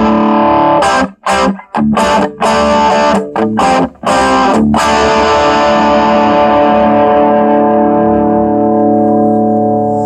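Cort KX100 electric guitar with humbucking pickups, played through distortion: short chopped chords that cut off abruptly several times, then about five seconds in a chord left to ring out and slowly fade.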